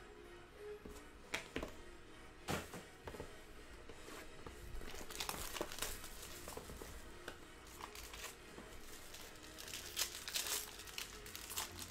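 Clear cellophane wrap on a trading-card box being torn and crumpled by hand, with a couple of sharp clicks in the first three seconds and denser crinkling from about five seconds in.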